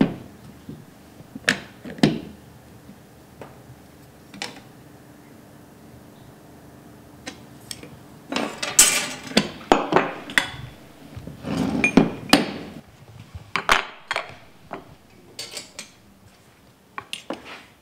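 Metal clicks and clanks of a scissor-type pipe bender being worked and opened to free a bent copper pipe, with a busier run of knocks and rattles from about eight to fourteen seconds in.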